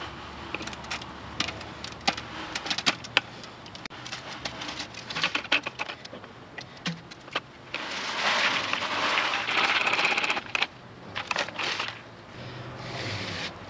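Wet concrete mix being poured from a plastic bucket into a cardboard form tube, with gritty scrapes and clicks of concrete against the bucket and tube. About eight seconds in comes a continuous pour lasting a couple of seconds.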